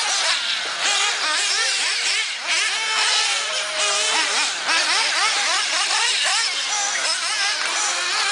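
Several 1/8-scale nitro RC buggy engines revving hard, their pitch rising and falling rapidly as the buggies accelerate and brake around the track. The engines overlap one another, so the pitch never settles.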